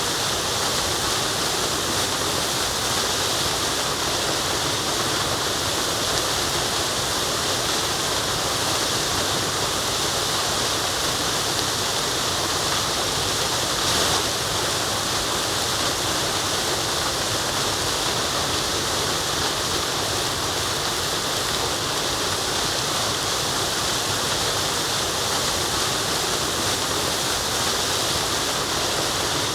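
Waterfall: water falling and running over rocks, a steady loud rushing hiss.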